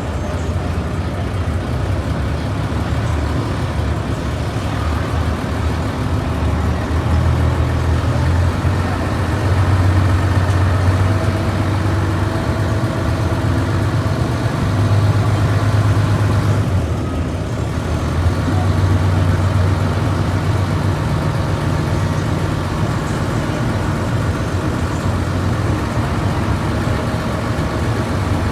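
A river ferry's engine runs steadily as a deep, loud drone, swelling a little and easing off briefly about two-thirds of the way through.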